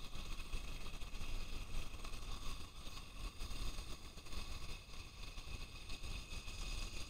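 Wind buffeting the microphone, an uneven low rumble that rises and falls, over a steady faint hiss.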